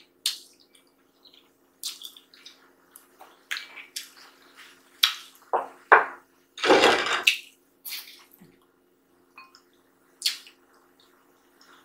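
Close-miked wet eating sounds of a chicken bone being sucked and chewed: scattered sharp clicks and smacks, with a longer noisy burst about seven seconds in. A paper napkin wipes the mouth near the end.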